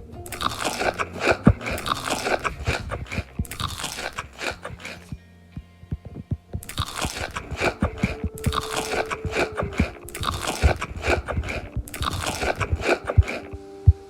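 Loud, close-up crunchy chewing of crisp food: dense crackling chomps in stretches, with a pause about five seconds in.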